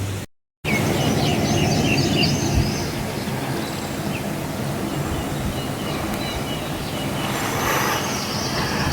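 Birds chirping over a steady rushing background noise, with chirps about a second in and again near the end.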